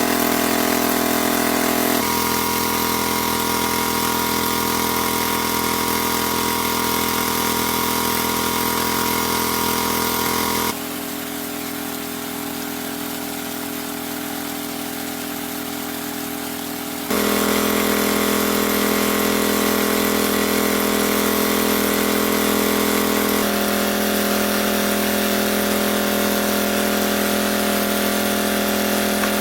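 A small engine running steadily, with a droning tone that shifts abruptly several times and drops quieter for a few seconds in the middle.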